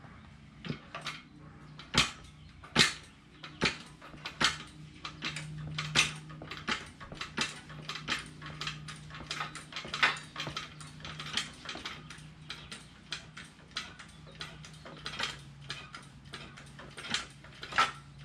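OTC Stinger foot-pumped hydraulic motorcycle lift being raised empty: repeated metallic clicks and clanks as the pedal strokes and the safety locking bar drops into the lock positions of the track, over a faint low steady hum.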